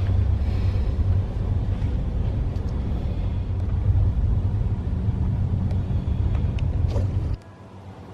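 Sleeper train running: a steady low rumble with faint ticks, which drops suddenly to a quieter hum near the end.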